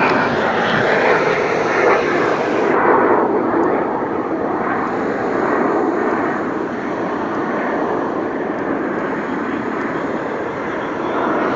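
Canadair CT-114 Tutor jets of the Snowbirds team flying over in formation: a loud, steady rush of jet noise whose hiss thins about three seconds in, then slowly fades.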